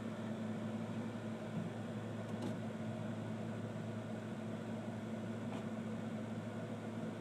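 Steady low hum over a hiss, like a small motor or appliance running, with two faint ticks, one about two and a half seconds in and one about five and a half seconds in.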